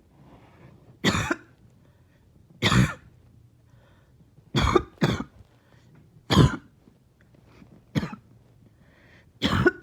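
A person coughing up phlegm after a breathing treatment: seven short, harsh coughs about every second and a half, two of them close together near the middle.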